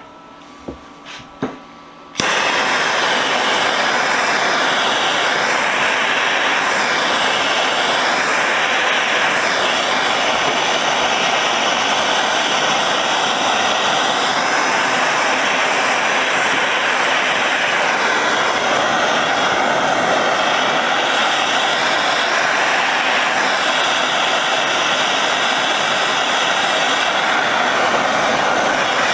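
A few sharp clicks, then a gas torch lights about two seconds in and burns with a loud, steady rushing hiss while it heats steel vise parts for hot oil blackening.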